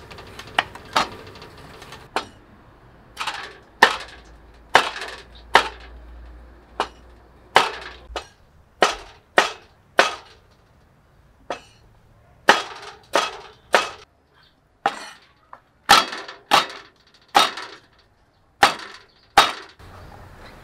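Cleavers chopping on round wooden chopping blocks: sharp knocks of the blade striking the wood, irregularly spaced at about one or two a second, some in quick pairs.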